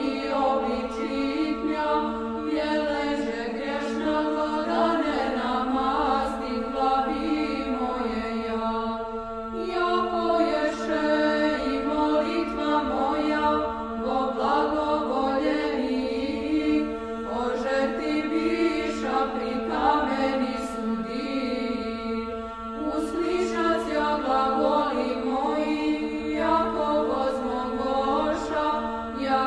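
Orthodox church chant sung by a choir over a steadily held drone note, the melody moving in phrases with short breaks every few seconds.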